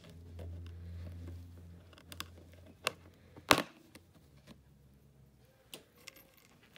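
Metal upholstery staples being pried out of a recliner's OSB frame with a flat screwdriver: a series of sharp clicks and snaps, the loudest about three and a half seconds in. A low hum underneath stops at about the same moment.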